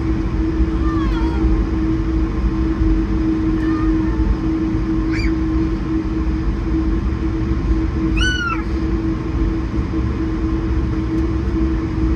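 Steady cabin noise of an Airbus A220-100 with a constant hum, and over it a cat meowing three times, about one, five and eight seconds in.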